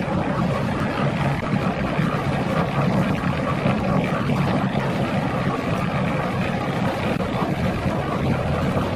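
A steady engine running at an even speed throughout, a low drone with no clear knocks or blows.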